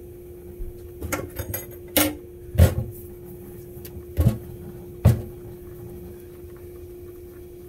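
Kitchen clatter: five knocks and thuds of cookware or cupboards being handled, the last ones heavy and dull, over a steady hum.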